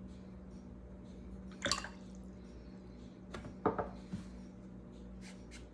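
A paintbrush being rinsed and tapped in a water jar: a few short watery splashes and clinks, about two seconds in and again a couple of times in the middle. A low steady hum sits under them.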